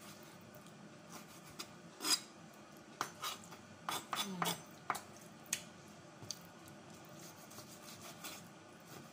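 Chef's knife knocking on a wooden cutting board while cubing raw boneless chicken: irregular knocks, most of them between about two and five seconds in, the loudest about two seconds in.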